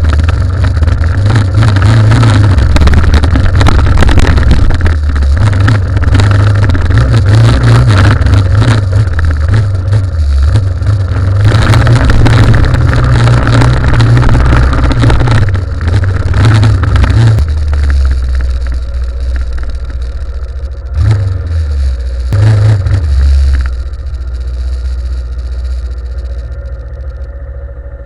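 Yamaha Ténéré motorcycle ridden on a dirt road: the engine running under load, mixed with wind noise and knocks from the rough ground. After about 17 seconds it eases off to a lower, steadier engine note, with two short surges of throttle a few seconds later.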